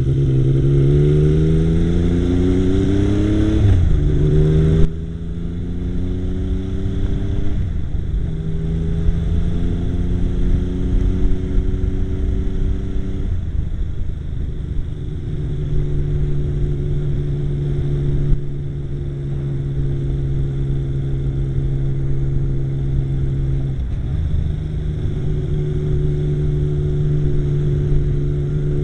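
Yamaha XS850 triple engine running under load: its pitch rises over the first four seconds, drops sharply about five seconds in, then holds fairly steady speeds with several step changes up and down.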